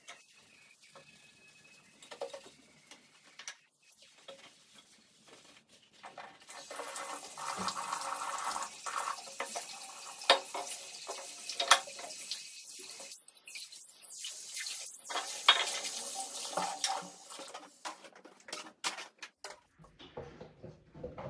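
Bathroom basin tap running for about twelve seconds as something is rinsed under it, with several sharp clinks against the basin. Small clicks come before the water starts and after it stops.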